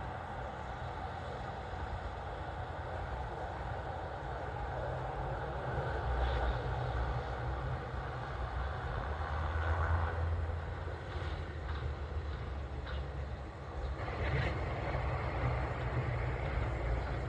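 Steady low drone of aircraft engines, swelling slightly about six and again about ten seconds in.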